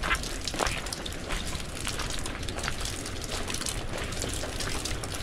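Footsteps on a wet, muddy dirt path, with irregular light crunches and clicks over a steady low outdoor rumble.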